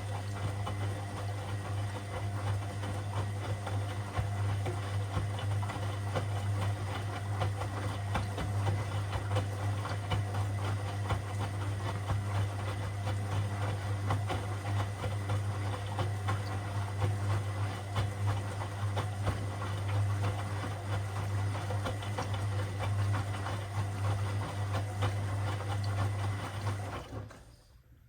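Washing machine running mid-cycle, its motor and drum giving a steady low hum with a faint rattle, then stopping abruptly about 27 seconds in.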